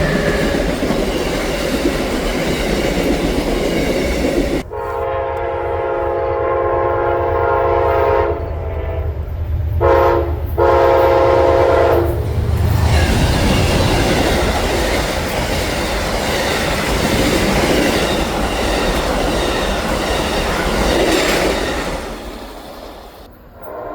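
A locomotive air horn sounds a chord of several notes in long blasts, then a short blast and a final long one, the pattern of a grade-crossing signal. It sounds over the rumble and rail clatter of a passing train.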